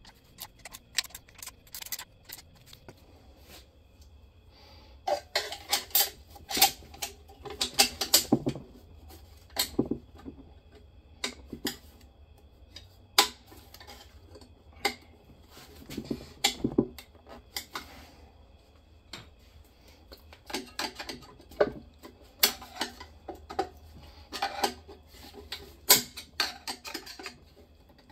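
Metal transmission parts and hand tools clinking and knocking during hand disassembly of a 4L80E automatic transmission, in scattered clusters of sharp clicks with quieter gaps between.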